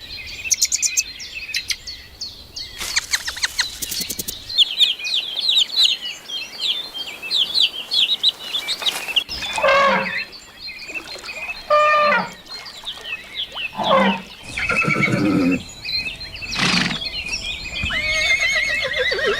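Animal calls: many short, high bird chirps, joined from about halfway by a series of louder, separate calls that fall in pitch.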